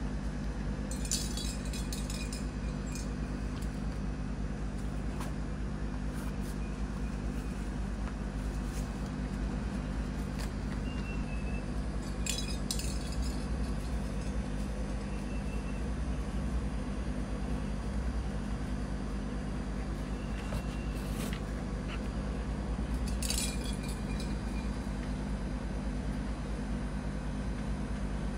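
A steady low hum, with three brief light metallic clinks that ring on for a moment: about a second in, near the middle, and about five seconds before the end.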